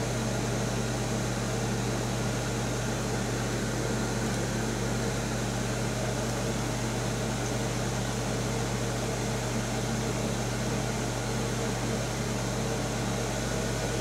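1975 Amana Radarange RR-6W microwave oven running on slow cook with its magnetron switched on: a steady, unchanging hum with a strong low drone under fan noise.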